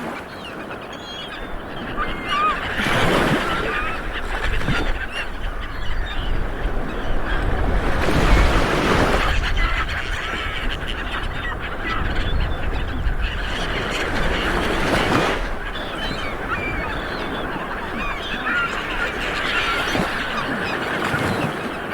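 Light waves washing onto a beach, with a surge about every six seconds, and birds calling overhead in many short calls throughout.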